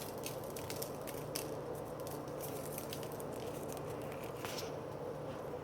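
Light, irregular clicks and rattles of a shaker of Mrs. Dash Southwest Chipotle seasoning being shaken over raw turkey burger patties, over a steady low hum.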